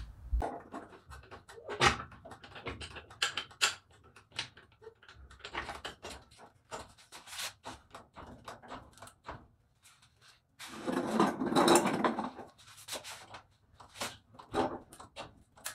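Scattered clicks and clanks from a steel floor jack and its long handle being set under the truck and worked on a concrete floor, with a louder rattling stretch about eleven seconds in.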